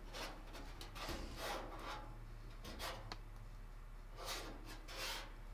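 Faint, soft rubbing and brushing, a few short strokes, as a hand moves over the back panel of a gas heater's cabinet.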